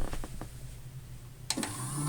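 A few light clicks from the controls of an AEG Electrolux Lavamat toy washing machine, then a sharp click about one and a half seconds in as its small motor starts a steady electric hum for the rinse cycle.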